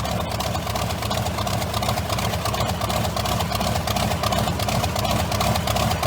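Allison V-1710 liquid-cooled V12 aero engine running steadily, its exhaust a rapid even beat of firing pulses.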